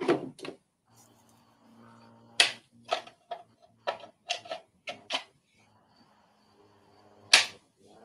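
Wildlife-camera recording of a mountain lion with her spotted kittens: a run of short, sharp sounds, about a dozen in a few seconds, with the loudest single one near the end, over a faint steady hum.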